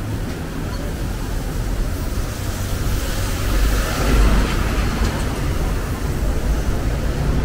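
Street traffic with a steady rumble. A vehicle passes close by about four seconds in, the loudest moment.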